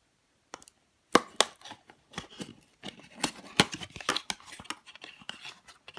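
Packaging being opened and handled: a rapid run of sharp clicks and crackling, as a blind-box squishy's wrapping is cut or torn open.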